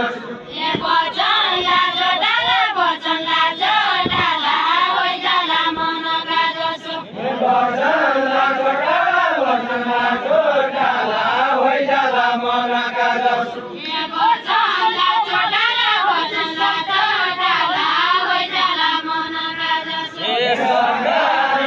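A group of voices singing a deuda folk song together in unison, a repeating melody in phrases of about six seconds with short breaks between them.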